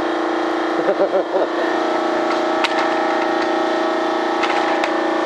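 A steady, unchanging hum made up of several pitches, with a few spoken syllables about a second in and small clicks near the end.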